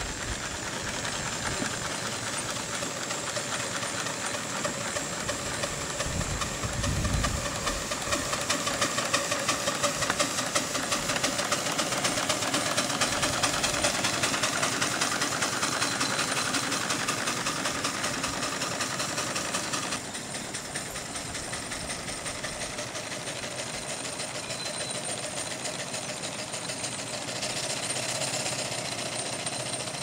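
Scale-model Fowler Super BA steam ploughing engine running under steam as it drives along, with a rapid, even beat from its exhaust and motion.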